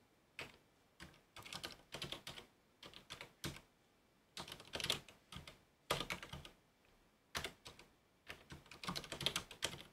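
Computer keyboard being typed on in short, irregular bursts of keystrokes with brief pauses between them.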